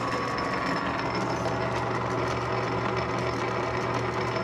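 Metal lathe running: a steady motor hum under a busy mechanical whir.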